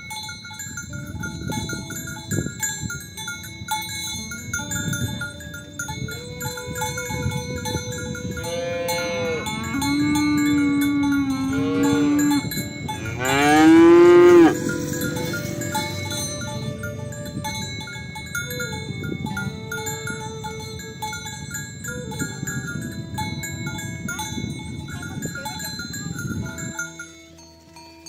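Cowbells on a herd of cattle clanking steadily as the animals move. Around the middle a cow moos twice: a long low moo, then a louder one that rises in pitch.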